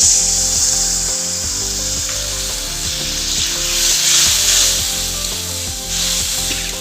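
Spice masala with cashew paste sizzling hard in hot oil in a pan as fresh milk goes in, loudest at the moment it hits, then frying on steadily while it is stirred. This is the masala being fried until the oil separates.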